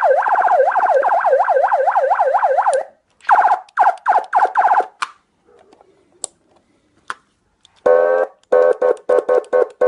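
Electronic siren driver through a 100 W siren horn speaker cycling through its tones. First a fast yelp sweeps up and down about four or five times a second, then comes a run of short choppy bursts. After a pause with a few clicks, a string of short horn-like blasts sounds on one low pitch.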